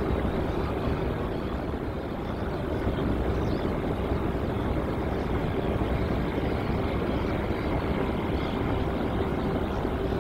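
Jet airliner's engines running, a steady rush of noise with a steady hum held underneath.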